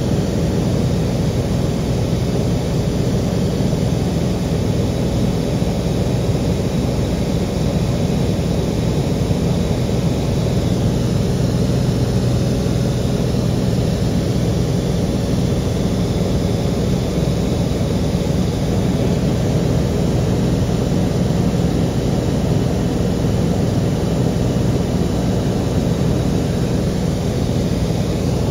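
Aircraft engine running at a steady drone, heard on board.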